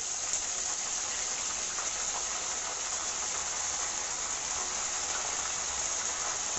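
Curry leaves and mustard seeds frying in hot oil in a clay pot: a steady sizzling hiss.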